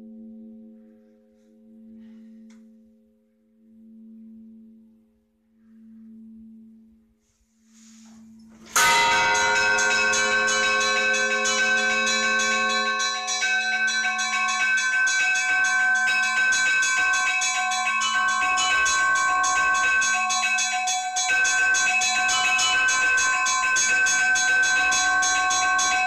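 Church bells. A low bell note hangs and fades, swelling and ebbing about every two seconds. About a third of the way in, a full peal breaks in suddenly, with several bells struck rapidly together, and it rings on loudly.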